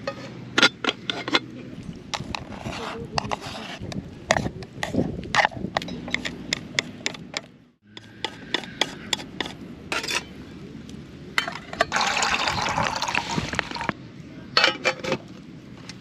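Camp cookware and utensils clinking and knocking repeatedly, with liquid being poured for about two seconds near the end.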